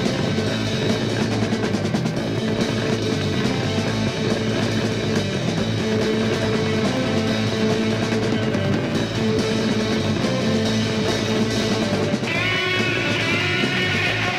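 1970s rock band playing: drum kit, bass and guitar in a steady driving groove. About twelve seconds in, a higher melody line with wavering, bending notes comes in over it.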